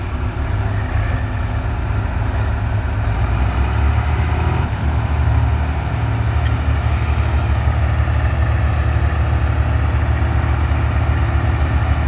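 Swaraj tractor diesel engines running with a low, steady, pulsing note. The nearest is a Swaraj 735 FE bogged in sand, with a second tractor just ahead of it.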